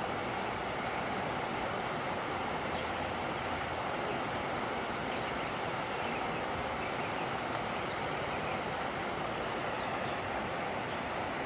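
Steady rushing noise with no pitch, holding an even level throughout, with a few faint ticks on top.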